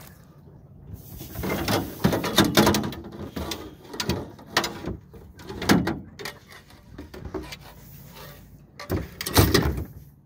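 Irregular knocks and clatter against the metal hull and deck of an aluminum fishing boat, heaviest over the first half and again in a loud cluster near the end.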